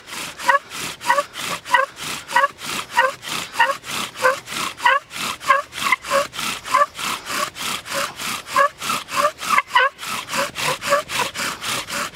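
Bow drill being worked hard and fast: the wooden spindle grinds in the hearth board's notch with a rhythmic rasping squeak on every stroke of the bow, about three to four strokes a second. The set has been soaked in water, and the friction is making the hole smoke as it builds heat toward an ember.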